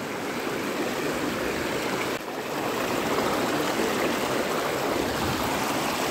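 Fast, shallow river rushing and splashing over rocks in a steady, loud rush, with a brief drop about two seconds in.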